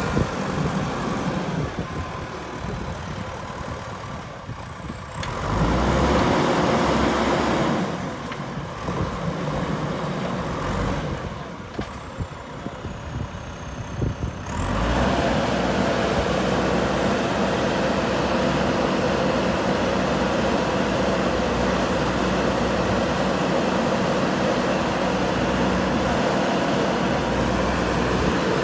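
Diesel engine of a JCB 3DX Super backhoe loader working under load as it drives and pushes soil with its front loader bucket. The engine note swells and eases in the first half, then runs steady and louder from about halfway through.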